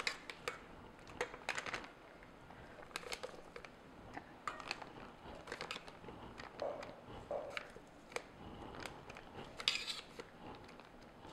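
Disposable plastic pastry bag crinkling as choux pastry is scooped into it with a spatula from a stainless steel bowl: faint scattered rustles and light clicks, with a louder rustle near the end.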